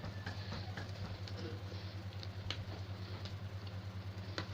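A spoon stirring thick rice pudding in a pot: soft scraping with a couple of light taps against the pot, over a steady low hum.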